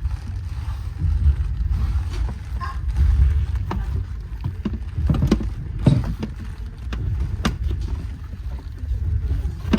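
Low rumble of a moving passenger train heard from inside the carriage, with a few light knocks and clicks in the middle.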